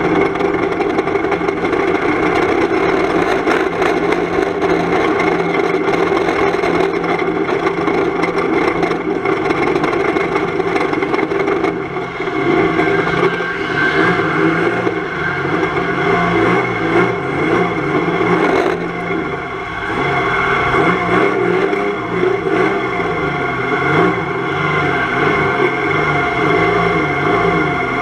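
Volvo 240 estate banger race car's engine running hard under racing, heard from inside the stripped cabin, its pitch rising and falling as the driver works the throttle. It eases off briefly about twelve seconds in and again a little before twenty seconds.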